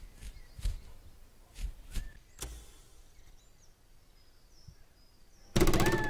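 Homemade foley sound effects: a few soft knocks, then near the end a sudden loud buzzing burst that turns into a whistle-like tone sliding slowly down in pitch.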